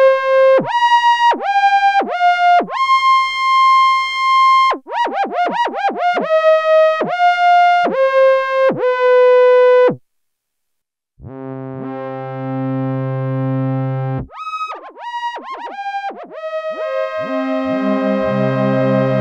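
Sequential Prophet-10 analog polyphonic synthesizer playing a factory preset, heard dry from its audio output. A single-note lead melody comes first, each note dipping down in pitch as it is released. After a short pause come held chords over a low bass, a brief run of lead notes, and then a sustained chord with bass notes joining near the end.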